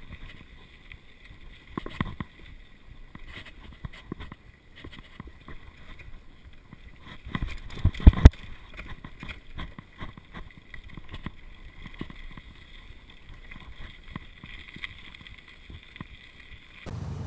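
Mountain bike rattling and knocking as it rides over a bumpy dirt trail, with scattered small knocks and two hard jolts close together about eight seconds in.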